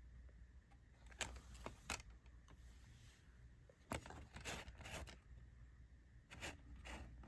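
Scattered short rustles and clicks of a DVD box set and its packaging being handled, over a low steady hum.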